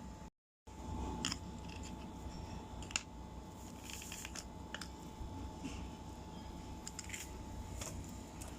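Eating at a table: scattered light clicks and taps of utensils, dishes and food, with the audio cutting out for a moment near the start.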